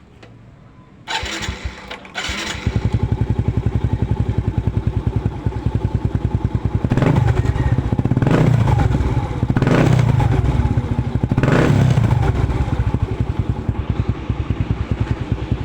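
Motorcycle with an aftermarket Apido Chrome V3 exhaust pipe, started about a second in and settling into a steady pulsing idle. It is revved in several short blips between about seven and twelve seconds in, then drops back to idle.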